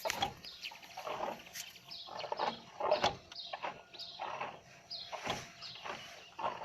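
An irregular run of clicks, knocks and short falling chirps, several a second and uneven in spacing, coming from a cooling system. This is the extraneous noise the cooling system is making.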